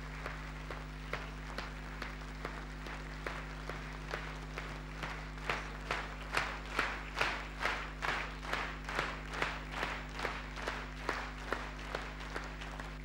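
Audience applauding, scattered at first, then from about halfway through falling into rhythmic clapping in unison at about three claps a second. A steady low electrical hum runs underneath.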